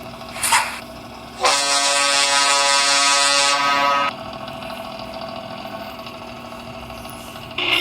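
A Hino truck's 'ngorok'-style air horn sounds one loud, steady blast of nearly three seconds, a buzzy chord of many tones with a rushing hiss. A short puff comes about half a second in, and another blast starts near the end.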